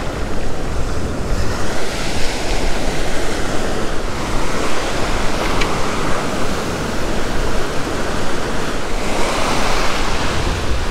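Ocean surf breaking and washing up the beach, with wind buffeting the microphone; the rush of the wash swells about two seconds in and again near the end.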